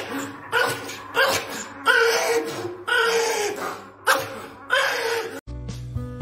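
A Pomeranian barking and yapping about seven times, at uneven gaps of half a second to a second. Music cuts in near the end.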